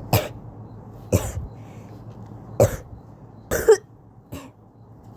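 Coughing: five short, sharp coughs about a second apart, the fourth a double cough and the loudest, the last one fainter.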